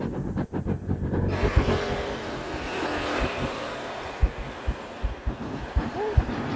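Road traffic: a car passing on the road, its noise swelling and fading over a few seconds, with low thumps about twice a second, the knocks of walking with the phone.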